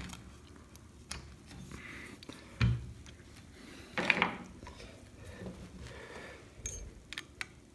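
Scattered metal clinks and taps from work on a motorcycle fork while its oil seals are being fitted, with a heavy knock about two and a half seconds in and a short clatter around four seconds.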